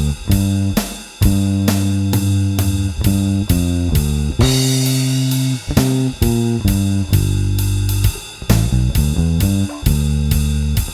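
Bronco electric bass with a TV Jones Thunderblade neck pickup, run through a Seymour Duncan Studio Bass Compressor, playing a sustained blues bass line with drums, regular cymbal strokes and a cymbal crash about four and a half seconds in.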